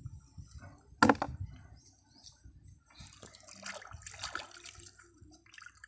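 Tuway clams being rinsed in water: irregular splashing and handling, with one sharp knock and a brief ring about a second in.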